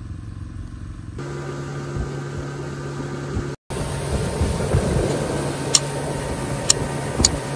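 Boat engine running steadily while under way, a constant hum with water rushing past the hull. Three sharp knocks come near the end.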